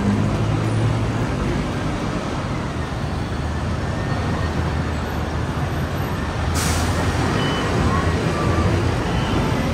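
Road traffic: engines of passing vehicles running with a steady low rumble, and a sudden short hiss about six and a half seconds in.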